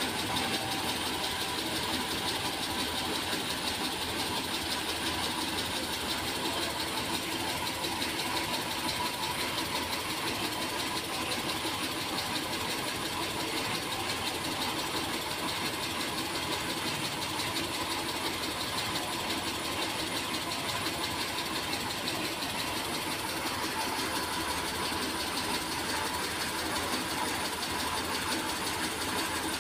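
Computerised circular sock knitting machines running steadily: a dense, fast, even mechanical clatter with a faint steady whine.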